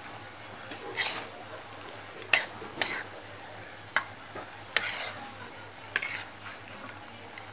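A metal spoon scraping and clinking against a stainless-steel pan as a dry-fried mixture is stirred: a series of short, sharp strokes about once a second.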